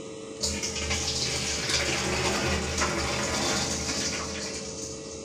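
Starchy water being poured off freshly boiled rice from a steel pot into a dish, a steady pour that starts about half a second in and tapers off near the end.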